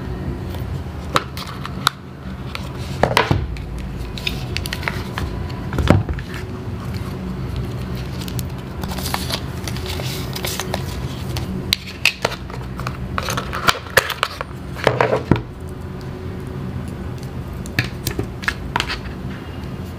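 Close-up unboxing handling sounds: cardboard and paper packaging rustling and scraping, with scattered light taps and clicks as the phone, the paper insert and the charging cable are picked up and set down. A steady low hum sits underneath.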